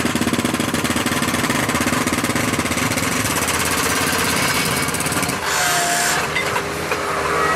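Hydraulic breaker hammer on a Bobcat skid steer pounding concrete in rapid, even strokes, stopping about five seconds in. A brief hiss follows, and the skid steer's engine keeps running.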